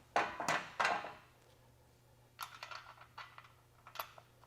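Clicks and knocks of a BOTE Mule Cart's wheel and axle pin being handled and fitted onto the axle: three loud knocks in the first second, then a scatter of lighter clicks.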